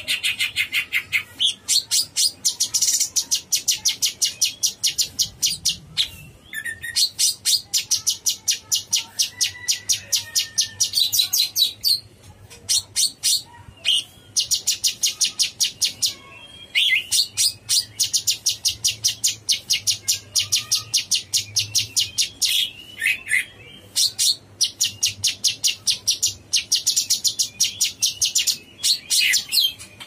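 Caged cucak cungkok leafbird singing hard (gacor): long runs of rapid, high repeated notes, each run lasting a second or two, coming again and again with short pauses between.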